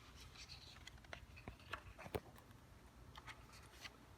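Near silence: quiet room tone with a few faint clicks and soft paper rustles from a picture book being handled, the sharpest click about two seconds in.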